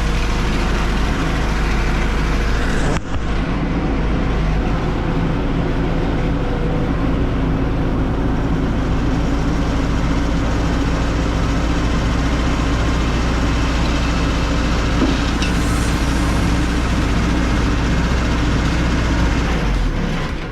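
Mustang 345 skid steer's engine running steadily with a heavy low rumble, with a short break about three seconds in. The machine is being run to test a freshly resealed hydraulic cylinder.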